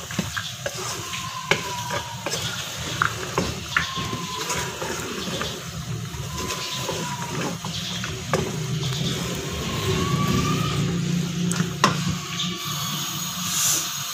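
Wooden spoon stirring and scraping peas and potatoes as they stir-fry in a metal pot, with frequent sharp knocks of the spoon against the pot over a steady sizzling hiss.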